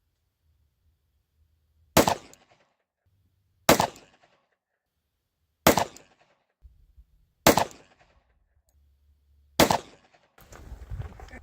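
Five shots from a Glock G29 Gen 5 10mm pistol, fired about two seconds apart with S&B factory ammunition, each a sharp crack with a short echo. A brief rustle of handling noise follows the last shot.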